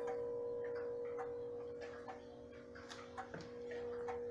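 Herschede Model 228 tubular-chime grandfather clock ticking evenly, not quite two ticks a second, over the steady ring of its chime tubes slowly dying away.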